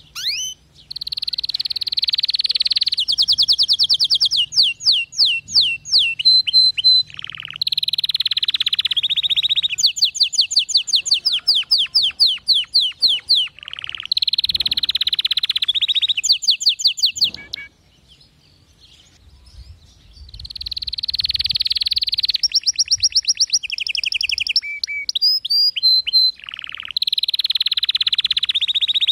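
Domestic canary singing: long rapid trills and runs of quick repeated notes, with a short break a little past the middle before the song resumes.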